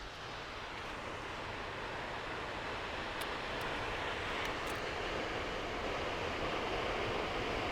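Waterfall rushing: a steady roar of falling water that grows slowly louder, with a few faint clicks in the middle.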